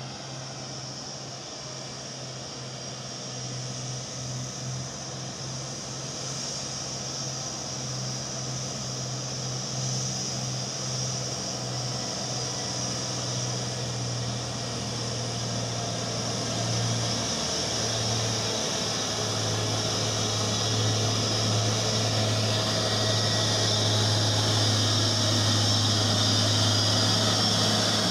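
Diesel engine of a loaded three-axle Mitsubishi truck pulling up a steep grade. It is a steady low drone that grows steadily louder as the truck approaches and passes close by near the end.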